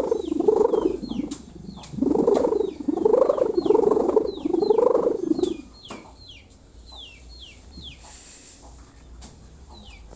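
Kite hummer (sendaren) on a flying kite, a 4-metre bamboo bow strung with a strapping-tape and plastic-film ribbon, giving its low snoring drone that swells and fades in pulses a little under a second apart. The drone drops away a little after halfway through, leaving it much fainter.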